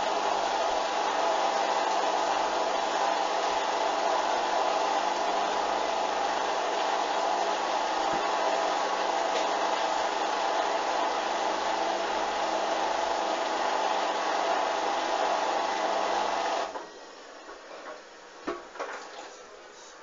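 Hoover A59 washing machine spinning at speed, a steady whirring run that cuts off suddenly about 17 seconds in. Afterwards come a few faint clicks and a knock as the machine goes quiet.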